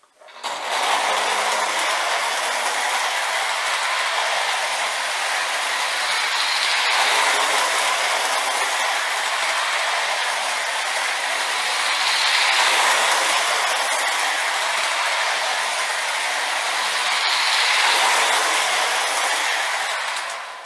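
Lionel Santa Fe U36B O-gauge diesel model locomotive running around a track loop: a steady whirring of its electric motor and gears, with the wheels rolling on the metal rails. It starts about half a second in, then swells and fades every five or six seconds as it circles.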